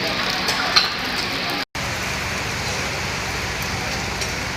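Heavy rain falling steadily, an even hiss with a few faint drop ticks; the sound cuts out for an instant about a second and a half in.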